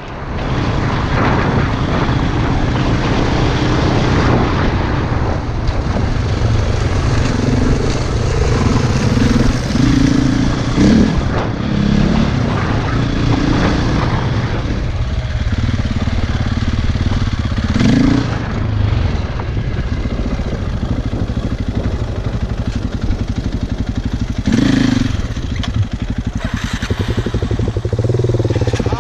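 Off-road motorcycle engine running while riding, its note shifting somewhat as the throttle changes, over a steady rush of noise.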